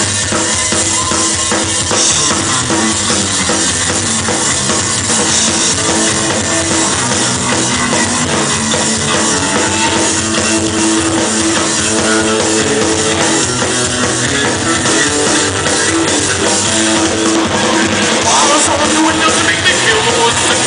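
Punk rock band playing live: drum kit and electric guitars, loud and steady throughout.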